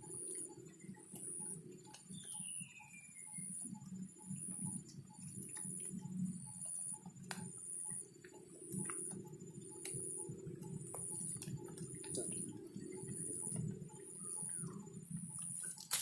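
Quiet outdoor background with a regular high ticking chirp about once every 0.7 s over a steady low hum. A short falling whistle, like a bird call, comes about two seconds in.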